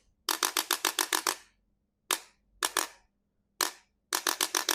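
Sharp mechanical clicks in quick runs, about seven a second: a run of about eight clicks, then two pairs and a single click, then another run of about eight.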